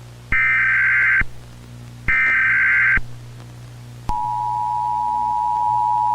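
Emergency Alert System broadcast tones. Two short bursts of the buzzing, warbling SAME header data, each just under a second with a pause between. Then, about four seconds in, the steady two-tone EAS attention signal starts and holds.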